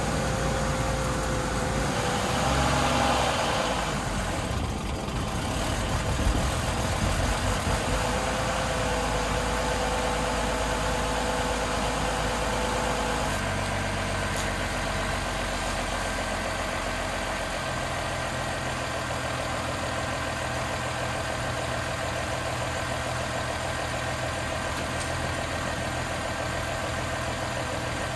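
2007 BMW X3 3.0si's straight-six engine idling steadily after a fix meant to make it idle better. The idle note shifts about halfway through.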